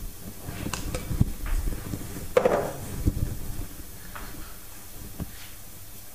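A spoon scraping and clinking against a ceramic mixing bowl as the last of the cheese-and-egg filling is spooned out, with scattered kitchen knocks; the loudest clink or knock comes about two and a half seconds in.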